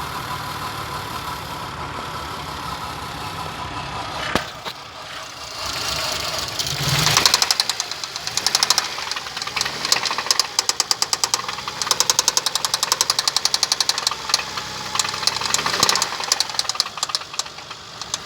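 Toyota 1MZ-FE 3.0-litre V6 engine running with a pronounced internal knock. From about six seconds in, a loud, rapid, rhythmic knocking dominates. The knock appeared less than 100 km after an oil change.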